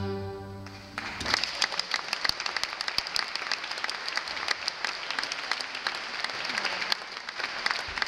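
The last chord of a bluegrass tune on banjo, fiddle, mandolin and double bass rings out and dies away, then an audience breaks into applause about a second in and keeps clapping.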